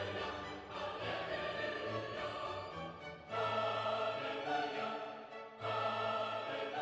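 Classical-style background music with choir-like voices over orchestral strings, the sustained chords changing every couple of seconds.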